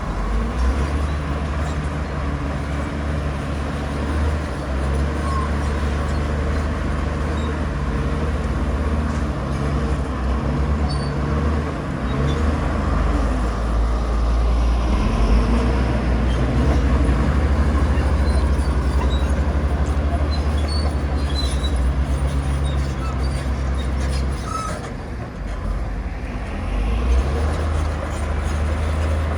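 Heavy diesel engine of earthmoving machinery running steadily under load, with a brief drop in loudness near the end.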